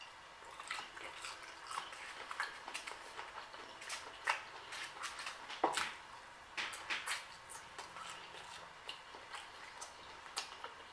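Close-up mouth sounds of a person chewing shrimp and ramen noodles: soft, irregular wet clicks and smacks, with a few louder smacks.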